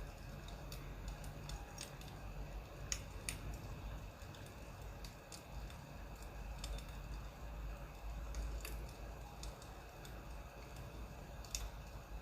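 Burning firewood crackling, with irregular sharp pops and snaps over a low steady rumble.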